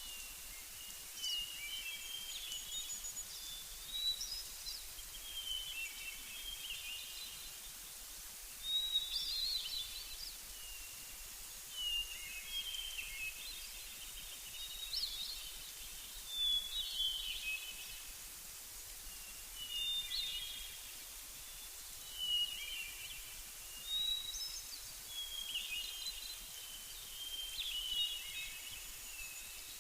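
Birds singing in short, chirping warbled phrases that come every two or three seconds, over a steady faint hiss.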